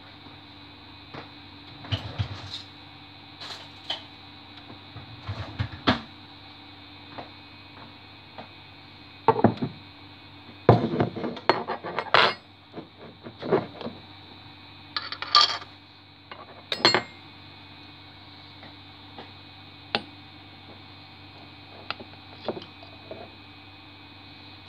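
Irregular clinks, knocks and clatters of a glass jam jar, its lid and cutlery being handled on a kitchen bench. They are busiest in the middle, where the jar lid is being worked, over a steady faint hum.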